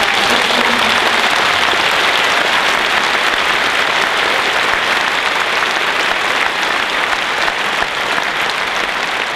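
Audience applauding, a dense, steady clapping that eases off slightly near the end.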